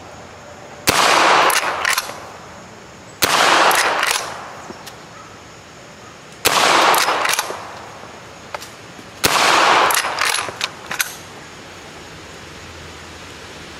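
Four shots from a Henry lever-action rifle, a few seconds apart, each followed by a ringing echo through the woods. Lighter clacks come after each shot as the lever is worked.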